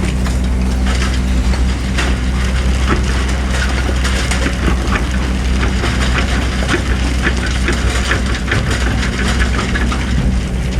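Hydraulic excavator's diesel engine running steadily, with a dense crackle of sand and small stones scraping and spilling from the bucket and many small knocks.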